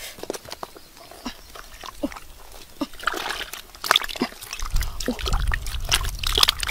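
Hands squelching and sloshing through wet mud. Scattered soft wet clicks at first, then denser splattering squelches from about three seconds in, with a low rumble under the last two seconds.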